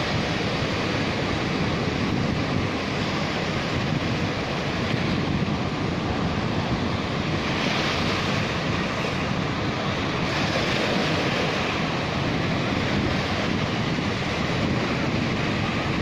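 Sea surf breaking and washing up the sand around rocks: a steady rushing hiss that turns brighter for a couple of seconds about halfway through, as a wave runs in.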